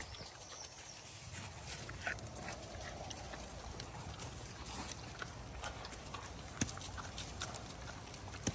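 Vietnamese potbellied pigs chomping on greens and fruit on wet leaf litter: wet crunching and smacking with scattered small clicks and rustles, and two louder sharp crunches in the second half.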